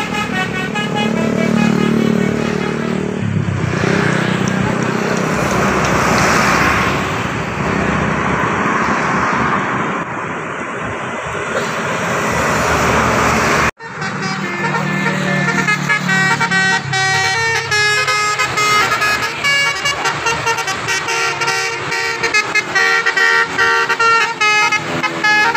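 Buses sounding 'telolet' horns: multi-trumpet air horns playing sustained chords and short tunes over bus engine and road noise. The sound cuts off abruptly about 14 seconds in, and after the cut a horn plays a quick run of changing notes.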